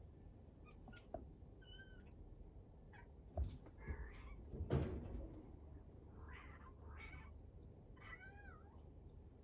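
A cat meowing several times: short, high-pitched, arching meows. There are two knocks about halfway through, and the second is the loudest sound.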